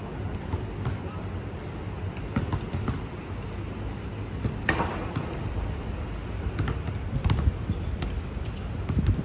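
A basketball bouncing now and then on an outdoor court, heard as scattered short knocks over a steady low rumble.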